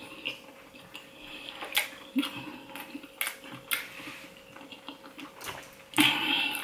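Close-miked eating sounds: chewing with scattered small clicks and smacks. Near the end comes a louder, short noisy sound as an oyster shell is lifted from the platter.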